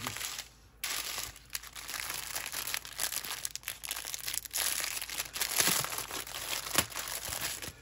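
Small clear plastic bags of diamond-painting drills crinkling as they are handled and shuffled, in uneven bursts with a brief pause about half a second in and a sharp tick near the end.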